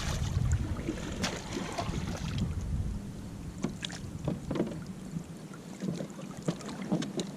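Water splashing and lapping around a Santa Cruz Raptor G2 sit-on-top kayak as a person moves in the water beside it, with irregular small splashes and knocks. Wind rumbles on the microphone for about the first three seconds.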